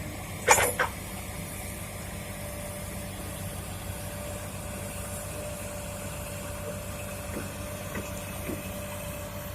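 Heavy diesel earthmoving machinery running steadily at an even pitch. Two sharp metallic clanks come about half a second in, and a few faint knocks follow later.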